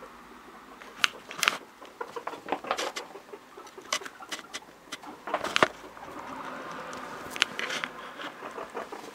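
Guinea pigs scampering and popcorning, their feet hitting the floor of the enclosure in quick, irregular knocks and pattering.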